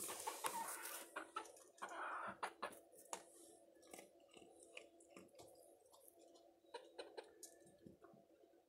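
Rustling handling noise for the first two seconds or so, then scattered sharp clicks and crunches of dry dog kibble being eaten and pecked from a steel bowl, over a steady low hum.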